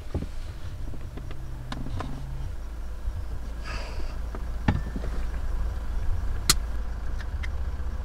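Low steady rumble of an idling vehicle engine, with a short hiss about four seconds in and a few sharp clicks, the loudest near the end.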